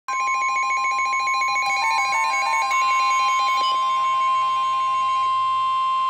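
Several NOAA weather radio receivers going off together for a severe thunderstorm warning. A steady 1050 Hz weather radio warning alarm tone sounds throughout, with the receivers' own electronic alarm beeps repeating quickly over it at several pitches; the beeping stops about three seconds in, leaving the steady tone.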